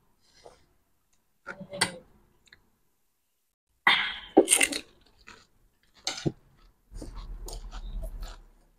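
Close-up eating of panipuri and chatpate: scattered crunching and chewing, with a loud, sharp breathy sound about four seconds in and a low rumble with clicks near the end.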